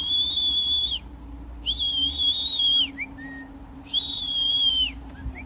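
Three long, steady, high whistles, each about a second long: a falconer's recall whistle calling a trained golden eagle to the glove.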